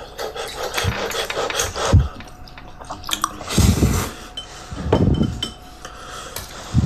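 Dishes and utensils clinking and clattering as bowls are handled, with a few heavier knocks and rustles near the middle.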